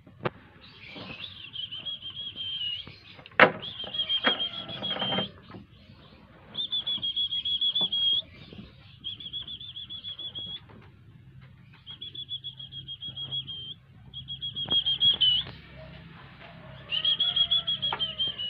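Shredded newspaper rustles and crackles as Shih Tzu puppies scramble and wrestle in it, with a sharp knock about three and a half seconds in. Over it come about seven high, rapidly trilling calls at one steady pitch, each a second or two long and the loudest sound heard.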